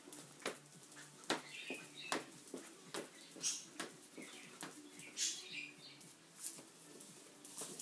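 A Jack Russell terrier's claws clicking and skittering on a tiled floor as it spins and scrambles about playing with a toy: irregular sharp ticks with a few short scuffing rushes.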